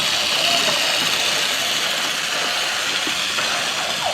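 Fisher-Price GeoTrax remote-control toy train's small electric motor whirring steadily as the train runs along its plastic track in reverse.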